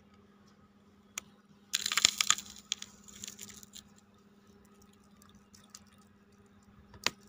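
A small clay pot scraping and knocking against a ceramic bowl as powder is tipped out of it. A short gritty scrape comes about two seconds in, followed by a few light clicks and one sharp tap near the end, over a faint steady hum.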